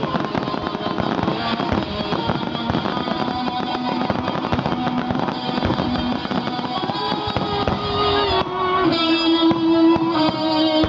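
Rock music with electric guitar, with fireworks bursting and crackling through it, the bangs thickest in the first half.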